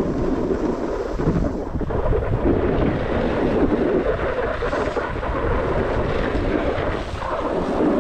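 A snowboard running over snow, the board scraping steadily, with wind rumbling on the microphone.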